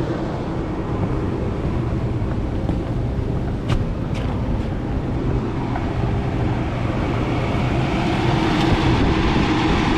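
Steady low drone of a belt-driven exhaust hood fan running, with two light clicks a little under four seconds in.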